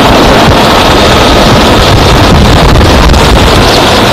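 Military helicopter in flight, heard from inside the open cabin: steady, loud engine and rotor noise mixed with heavy wind buffeting on the microphone.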